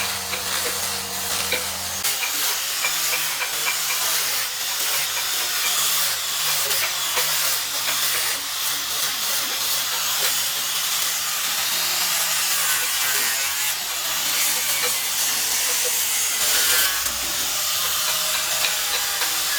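Power tool working wood: a steady hissing, rasping noise over a low motor hum that shifts in pitch about two seconds in.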